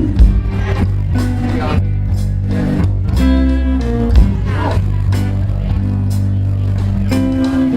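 Live blues band playing between sung lines: guitar over steady bass notes and a beat of short hits.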